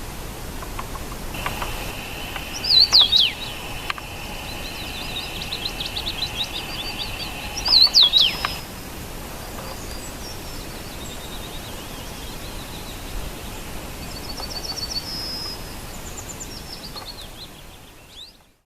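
Wild birds singing and calling: two loud whistled phrases about five seconds apart, with quieter rapid trills between and later, over steady outdoor background noise.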